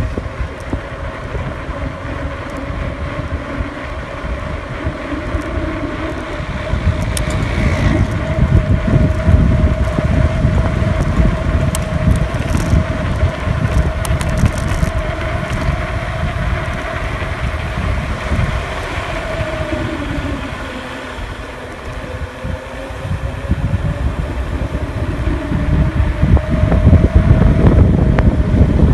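Wind buffeting the microphone of a phone carried while riding a bike along a road, over a steady hum whose pitch sags about two-thirds of the way through and then climbs again. The rushing gets louder near the end.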